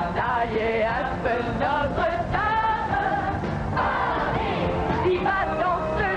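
A woman singing a stage-revue song into a microphone over a full band accompaniment.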